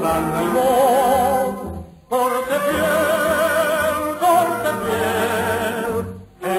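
Vintage radio advertising jingle: a singer in operatic style with a wide vibrato over musical accompaniment, breaking off briefly about two seconds in and again near the end.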